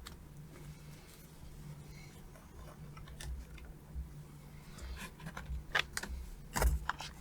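Faint clicks and taps of hands handling an open laptop while a RAM stick is put back into its slot, over a low steady hum. The clicks come closer together in the last couple of seconds.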